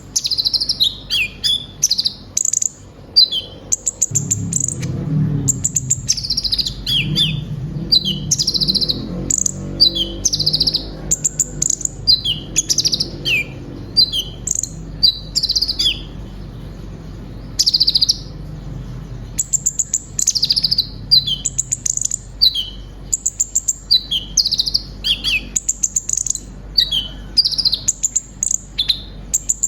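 Kolibri ninja sunbird singing a fast, unbroken run of high chirps, short trills and quick falling notes, with brief pauses. Its song is filled with phrases mimicked from other birds.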